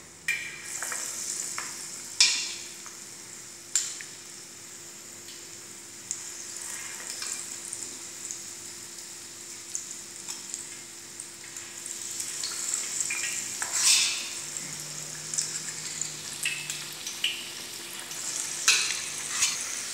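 Zucchini-and-vegetable fritter (mücver) batter sizzling as it deep-fries in a large pot of hot oil, a steady crackling hiss. Several sharp clinks of a metal spoon against the steel bowl and pot as more batter is spooned in.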